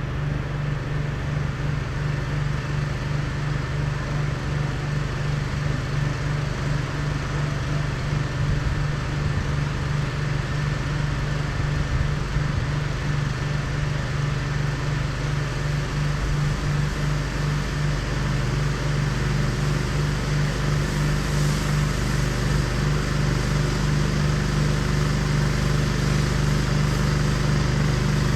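Pressure washer's brand-new gas engine running steadily at working speed, its first hours of break-in, with a steady hiss over it. It gets a little louder about two-thirds of the way through.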